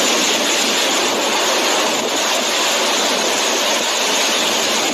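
Heavy storm downpour during a hailstorm: a loud, steady, even rushing hiss with no separate impacts standing out.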